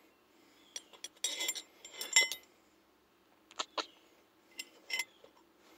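Metal clinks and taps of a steering wheel lock plate removal tool being handled and fitted onto the steering column by hand: a quick cluster of sharp clicks about a second in, then a few single clinks later.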